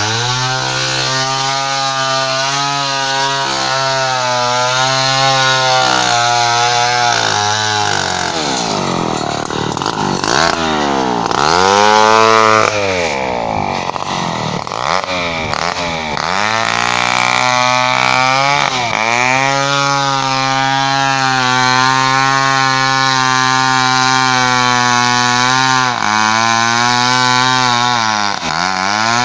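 Large Stihl two-stroke chainsaw running steadily, its pitch rising and falling as it is revved up and dropped back several times in the middle and again near the end.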